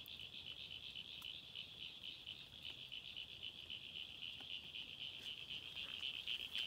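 A frog chorus: a steady, fast-pulsing high trill of many calling frogs.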